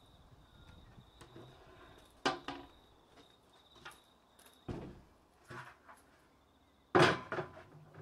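A large flat board being handled and set down on a wooden hive stand: scuffs and several knocks, the loudest a thud about seven seconds in as the board lands on the stand.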